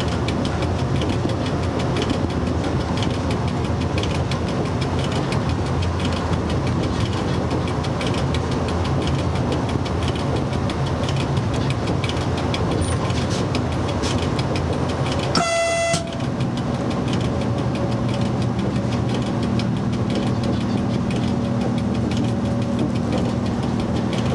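Steady running noise of an FS E.656 electric locomotive heard from its cab at speed, with one short horn blast about fifteen seconds in.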